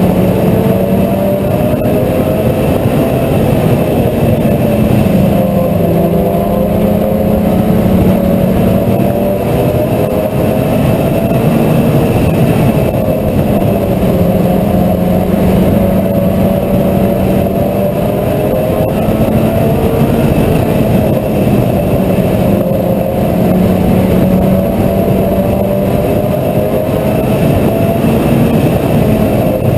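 Mini stock race car engine running hard under race load, its pitch rising and falling every few seconds as it accelerates and lifts around a short oval.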